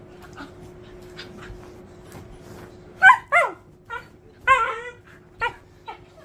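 A pet dog giving a run of about six short, high-pitched whiny yips starting about three seconds in, the first two the loudest, excited and ready to play. Before them only faint ticks.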